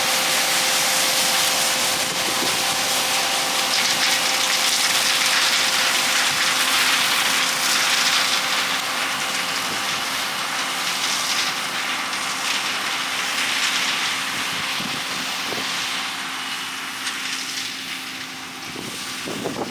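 Combine harvester running while shelling corn: a steady machine hum under a loud rushing hiss of crop going through. The hiss eases off somewhat near the end.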